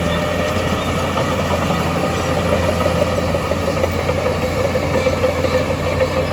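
Heavy earthmoving machine's diesel engine running steadily, with a wavering whine that grows stronger in the second half.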